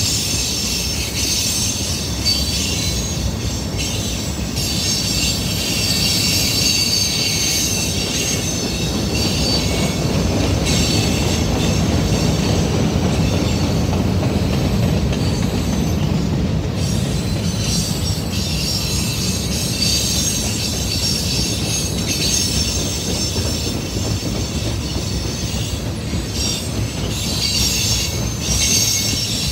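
Manifest freight train's tank cars rolling past, steel wheels rumbling on the rails with a high-pitched wheel squeal that comes and goes. The squeal is strongest in the first several seconds and again near the end, and the rumble is heaviest in between.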